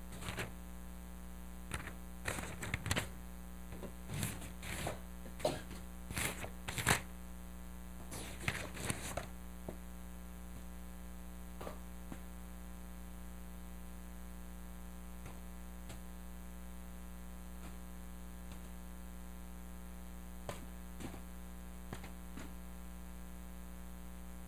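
Steady electrical mains hum, with a string of short paper rustles and taps over the first nine seconds or so as Bible pages are leafed through; after that only the hum, with a few faint ticks.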